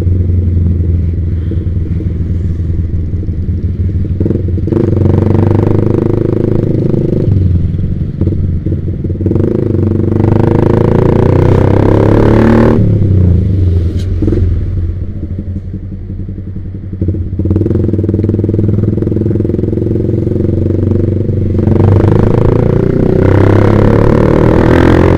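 Yamaha Vixion's single-cylinder four-stroke engine sounding through an aftermarket Proliner TR1 R exhaust while being ridden. The revs rise and fall several times as the rider accelerates, and it backs off to a quieter stretch about two-thirds of the way in before pulling again.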